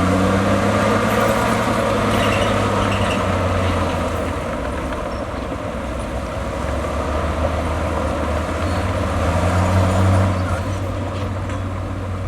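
Heavy diesel engine of earthmoving machinery running steadily under work, rising briefly about ten seconds in.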